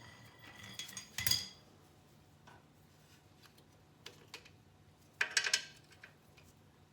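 Metal hand tools clinking against each other and against metal: two short clattering bursts with a brief ringing, about a second in and again about five seconds in.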